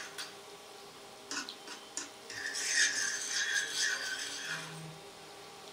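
A spoon stirring sugar syrup in a nonstick frying pan, scraping along the bottom of the pan: a few light taps, then about two seconds of steady scraping.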